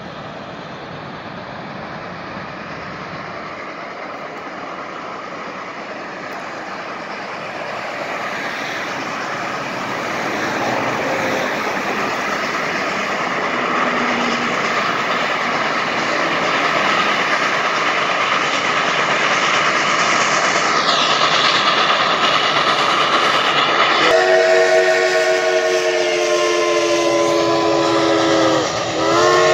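Reading & Northern 425, a 1928 Baldwin steam locomotive, approaching, its noise growing steadily louder. Near the end its chime whistle blows a long chord of several notes, which dips briefly and sounds again.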